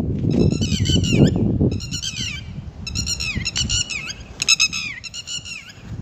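Red-wattled lapwings giving repeated sharp alarm calls in quick series, each note falling in pitch, as they circle over their chicks on the ground.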